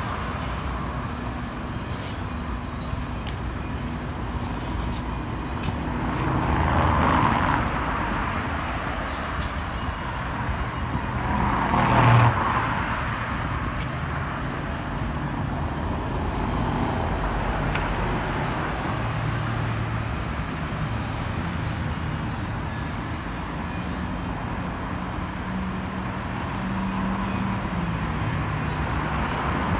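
Road traffic on a city street: a steady rush of cars and engines, with vehicles passing close twice, about seven and twelve seconds in, the second louder.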